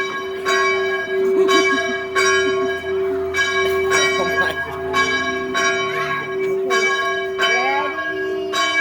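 A bell swung by pulling its rope, clanging steadily about once every two-thirds of a second, with each stroke ringing on over a continuous hum.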